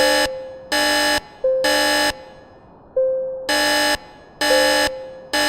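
Building fire alarm sounding the evacuation tone: harsh half-second horn blasts in groups of three, with a pause after each group (the temporal-three pattern). A fading chime tone rings about every one and a half seconds between them.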